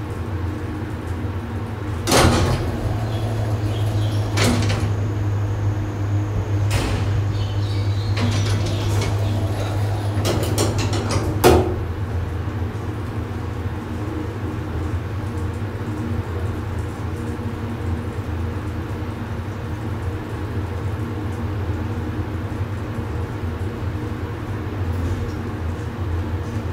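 A 1970s Fujitec elevator riding between floors. Its machinery hum grows louder with a sharp clunk about two seconds in, further clunks and rattles follow, and a last sharp clunk comes near the middle. After that a steadier, lower hum continues.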